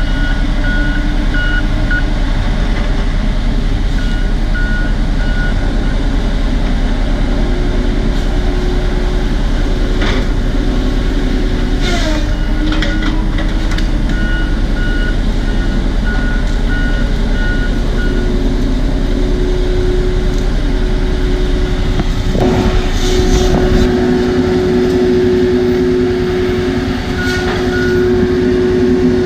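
John Deere crawler bulldozer's diesel engine running under load, its pitch shifting a couple of times, with a few clanks. Its back-up alarm beeps in stretches as it reverses while blading the road.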